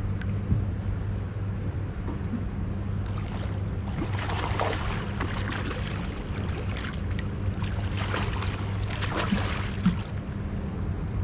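Water splashing in two spells, about four seconds in and again from about eight to ten seconds, over a steady low hum.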